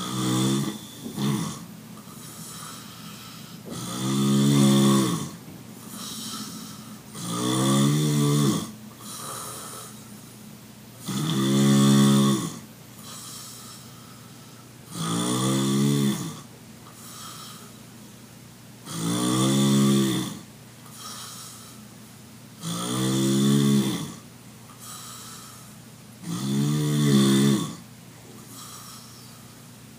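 A person snoring in a steady rhythm: a long snore about every four seconds, with a softer breath between each snore.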